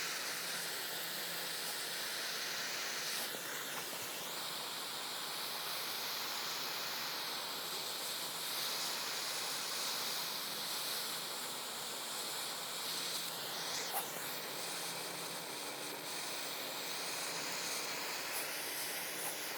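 Gas torch flame hissing steadily as it scorches the surface of a carved wooden bear, burning off the fuzzy wood fibres.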